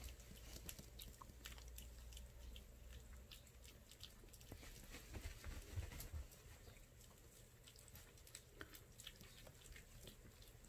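Two kittens eating soft wet weaning food from a plate: faint, irregular small clicks and smacks of lapping and chewing.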